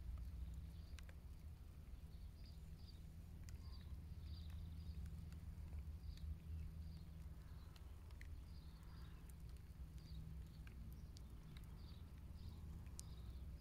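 Quiet outdoor ambience: a steady low rumble with faint, scattered high chirps and a few soft clicks.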